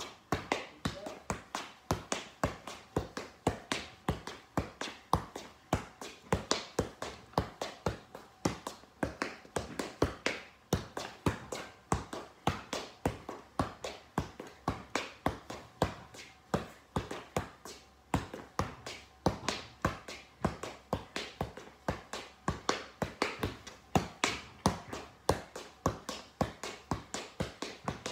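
Soccer ball being juggled on the feet: a steady run of ball-on-foot taps, about three a second, that keeps going without a break.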